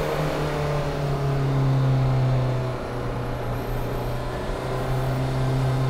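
Mk1 VW Rabbit turbodiesel engine with a variable-vane turbo, pulling steadily under boost, heard inside the stripped-out cabin. It eases off briefly about three seconds in.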